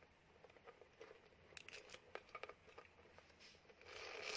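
Faint handling of a small glossy jelly-plastic handbag: a few light clicks and plastic rustles, with a louder rustle in the last half second.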